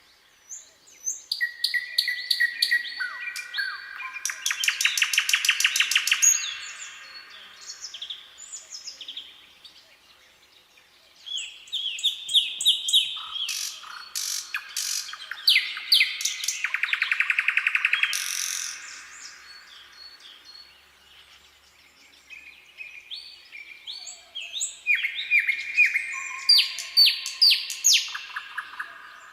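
Nightingale singing: three long, varied song phrases of whistles and fast rattling trills of repeated notes, separated by short pauses.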